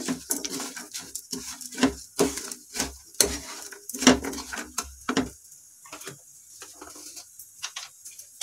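Wooden spatula stirring granulated sugar and roasted almonds in a non-stick pan: a quick run of scrapes and knocks against the pan that stops about five seconds in, leaving only a few faint clicks. The sugar is just beginning to melt for a dry caramel.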